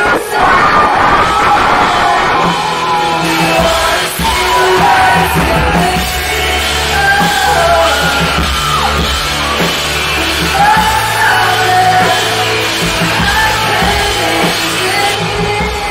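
Live band music with a woman singing long, drawn-out lines over guitar, drums and a sustained low bass.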